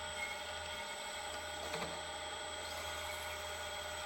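Bridgeport milling machine running steadily at speed, a level hum with several fixed whining tones, and one light click a little under two seconds in.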